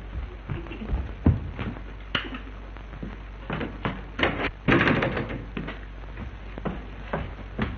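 Several short knocks and thumps spread over a few seconds, the loudest about a second in and around five seconds in, over a steady low hum from the old soundtrack.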